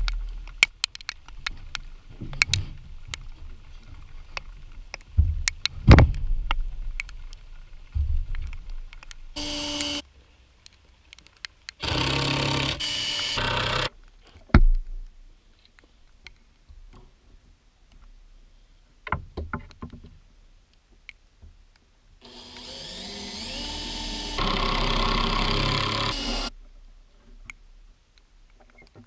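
Makita cordless drill/driver boring into rough-sawn lumber, its motor whirring in short runs: about half a second a third of the way in, about two seconds a little later, and about four seconds near the end. Between the runs, scattered knocks and clicks of boards and tools being handled.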